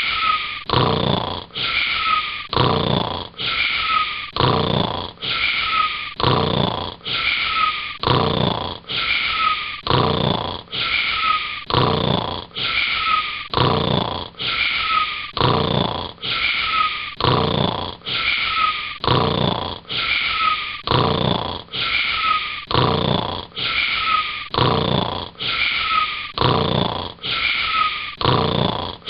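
Cartoon-style snoring in a fast, even rhythm, each snore carrying a short falling whistle-like tone. The snores repeat almost identically, like a loop.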